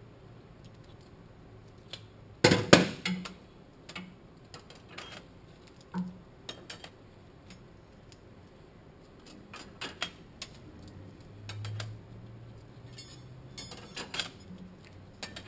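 Steel clutch plates and friction discs clinking against each other and the aluminium transmission case as they are fitted into a Toyota A340 automatic transmission. A cluster of loud clanks about two and a half seconds in, then scattered lighter clinks.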